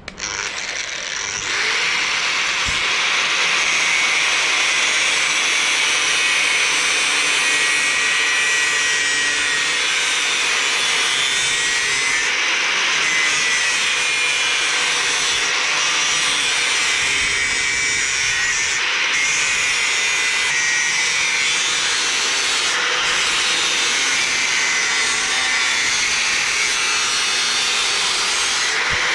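Angle grinder grinding the hard steel face of an old anvil to take out surface damage. It comes up to speed about a second in, then grinds steadily.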